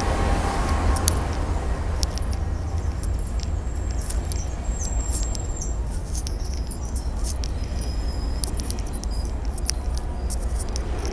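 Metrolink bilevel passenger coaches rolling past close by: a steady low rumble of wheels on rail, with scattered sharp clicks and clanks.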